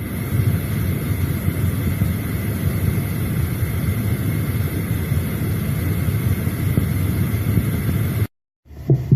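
Steady low rumbling machine-like noise with a faint steady high tone, picked up through a 50 mm borehole casing and taken by the recordists for underground tunnel-digging machinery. It cuts off suddenly near the end.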